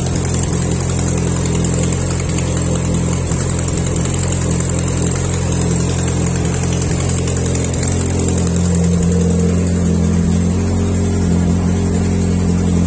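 Freshly rebuilt Audi 1.8T turbocharged inline-four idling steadily, running on its first start after the rebuild. It gets slightly louder about eight seconds in.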